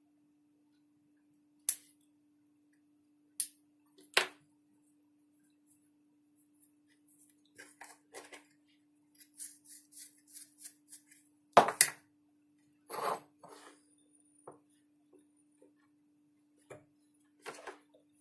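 Hard plastic and metal parts of a gas blowback airsoft magazine clicking and knocking as they are handled with a metal pick, during an o-ring replacement. Three sharp clicks come early, a run of lighter rattles follows, and the loudest two knocks fall close together a little past the middle.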